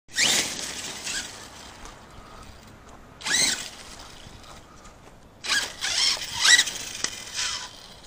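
Arrma Kraton 6S RC truck's brushless motor whining in a series of short throttle bursts, each rising sharply in pitch, the loudest a little past six seconds in.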